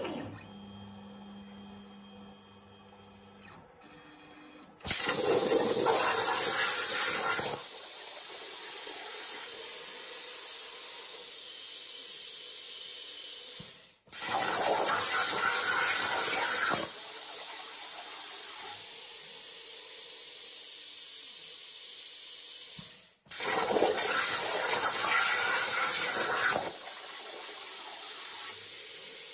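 CNC plasma torch cutting thin sheet metal over a water table: a loud, steady hiss of the arc and rushing air that starts about five seconds in. It is loudest for the first couple of seconds of each stretch, then settles, and it breaks off abruptly twice before starting again.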